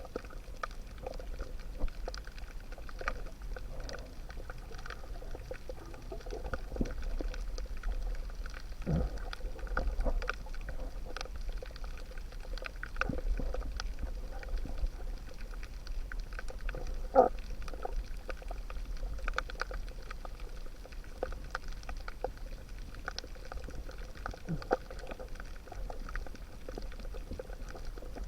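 Underwater ambience: scattered short clicks and crackles with a bubbling, pouring sound over a steady low rumble.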